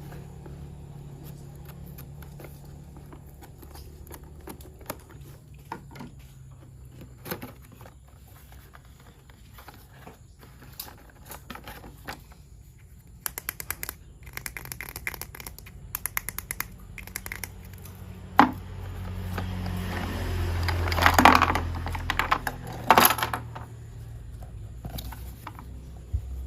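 Plastic toy train parts being handled and fitted together: scattered small clicks and rattles, quick runs of ticking in the middle, and a louder stretch of rustling and knocks near the end.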